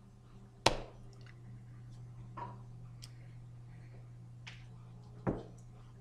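Two sharp slaps of hands striking together while signing, one under a second in and a second one about five seconds in, with a few faint taps between, over a steady low hum.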